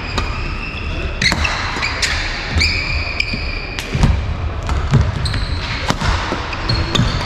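Badminton rally: rackets hitting the shuttlecock with sharp clicks, court shoes squeaking on the hall floor, and thuds of the players' footwork and lunges.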